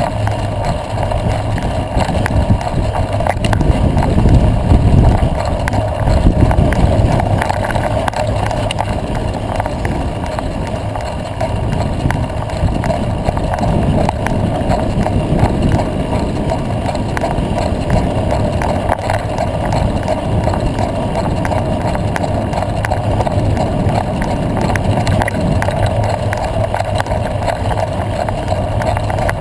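Mountain bike riding over a dirt road: steady tyre noise with many small rattling clicks from the bike, and wind rumbling on the microphone. It is louder for a few seconds near the start.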